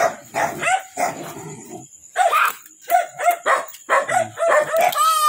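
Dog barking and yipping in short, repeated, high calls. Near the end a long, falling whine begins.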